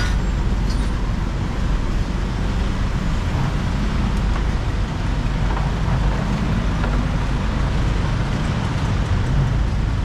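Steady street traffic: a continuous low rumble of passing vehicles, with no single event standing out.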